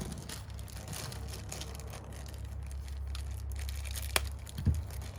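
Faint rustling and handling of small fittings and their packaging, with a single sharp click about four seconds in, over a low steady hum.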